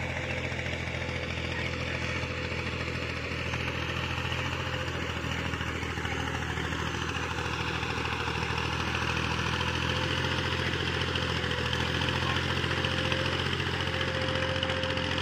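Tractor engine running steadily as it pulls a trolley loaded with logs, growing gradually louder as it comes closer.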